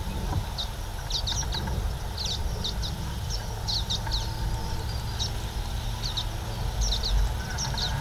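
Small birds chirping in short, high notes that come in quick clusters, over a steady low rumble.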